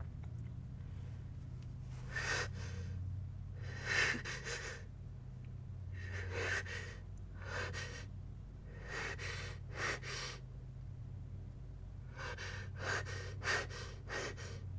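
A person's sharp, breathy gasps, about ten of them at irregular intervals and coming faster near the end: the hitching breaths of a sneeze build-up. A steady low hum runs underneath.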